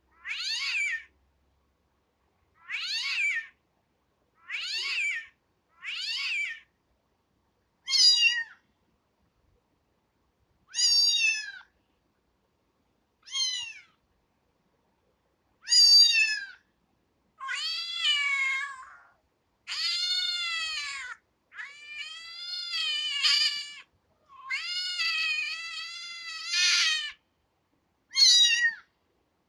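A kitten meowing over and over: about a dozen short, high-pitched meows with silent gaps between them, the later ones longer and drawn out.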